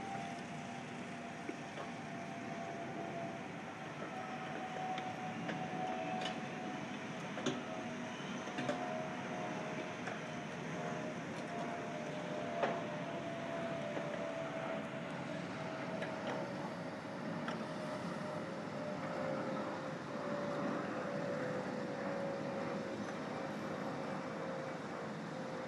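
Demolition-site machinery, with excavators working rubble, heard from above as a steady mechanical din. A high whine falls slowly in pitch throughout, and a few sharp knocks stand out near the middle.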